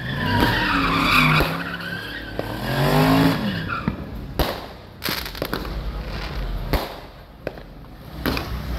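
A car engine revs up and down while its tyres squeal, as the car spins sideways on the street during the first three and a half seconds. After that come scattered sharp pops of fireworks.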